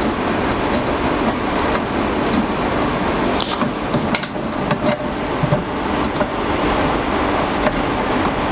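A steady rushing background noise, with scattered small metal clicks and clinks of screws, lock nuts and a wrench being fitted under a router table.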